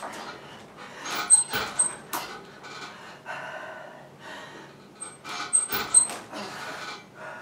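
Hard, rapid breathing and panting from an athlete doing band-assisted chest-to-bar pull-ups, with sharp metallic clinks and rattles from the pull-up bar and the band's fixing in two bursts, about a second in and around five seconds in, one for each kipping rep.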